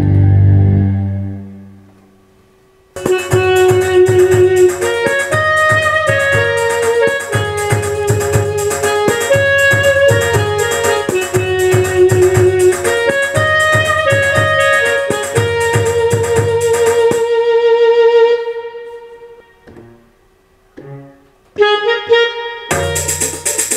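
Roland E-X50 arranger keyboard playing an auto-accompaniment rhythm with a melody played over it, ending in a trill. The music then fades, a few single notes sound, and a new, fuller drum rhythm starts near the end.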